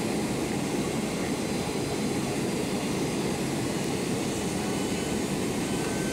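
Steady jet engine and airflow roar heard inside the cabin of a Boeing 767-300ER descending on approach to land, even and unchanging, with a faint thin whine coming in near the end.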